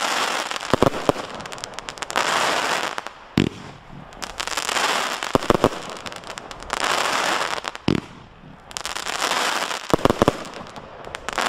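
'Mad Dog' firework firing volley after volley: sharp bangs as shots leave the tubes, and about a second of hissing, crackling noise from the bursting stars, in waves roughly every two seconds.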